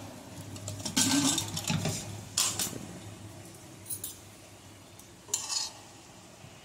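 Metal clatter from an aluminium pressure cooker as its lid is handled, then a steel spoon scrapes and clinks against the pot among boiled chickpeas. There are a few separate clatters: the loudest about a second in, another shortly after two seconds, and a short sharp one near the end.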